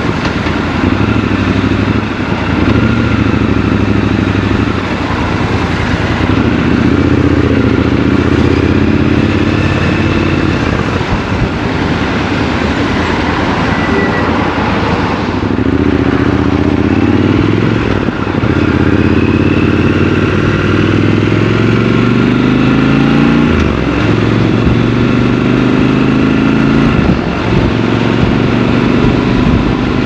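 Triumph Scrambler 1200 XC's parallel-twin engine heard from the rider's seat, accelerating through the gears: several times the revs climb and then drop sharply at a gear change, with a lower, steadier stretch partway through.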